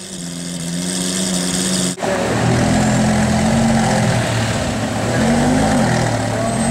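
Supercar engine running loudly, idling with a steady note, then a couple of short throttle blips that rise and fall in pitch. The sound jumps suddenly about two seconds in, as at an edit.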